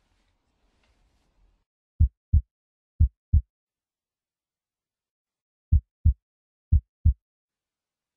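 Heartbeat sound effect: low, muffled lub-dub double thumps, two beats about a second apart, then a pause of about two seconds and two more beats.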